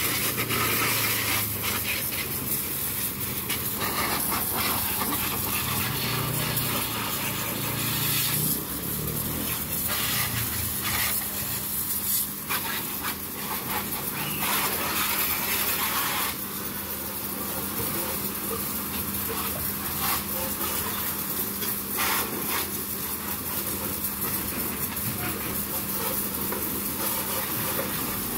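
Strong jet of water from a high-pressure hose spray nozzle hissing and spattering against a motorbike's wheel and bodywork, the sound shifting every few seconds as the jet is moved around, over a steady low hum.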